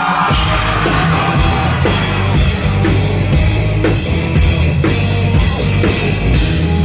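A post-hardcore band playing live and loud at the start of a song, with the drum kit prominent in the mix.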